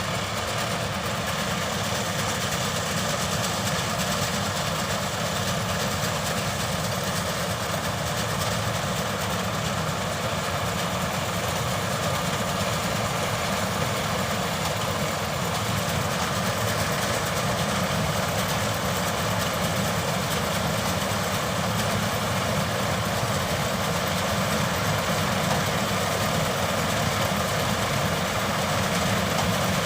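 Changfa CF805N combine harvester's diesel engine and machinery running steadily, a dense, even noise that grows slightly louder in the second half.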